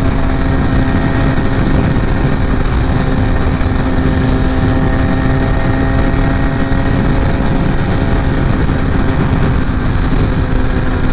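Carbureted motorcycle engine running at a steady speed on the move, its tone holding level, with a heavy rush of wind and road noise.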